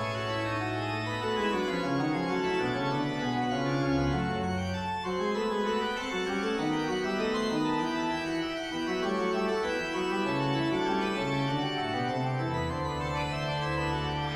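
Organ music: slow held chords whose notes change every second or so.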